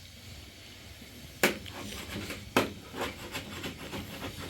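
Two sharp knocks about a second apart, followed by a run of lighter clicks and rubbing, as objects are handled and set down.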